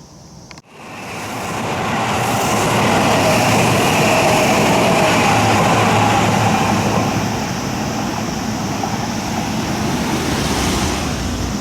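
Seibu Ikebukuro Line train running past close by: the rumble and wheel noise swell within about a second and a half, then hold loud and ease slightly after about seven seconds.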